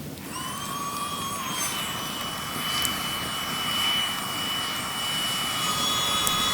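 A steady high-pitched whistle that starts suddenly, rises a little and then holds, with a few sharp crackling clicks.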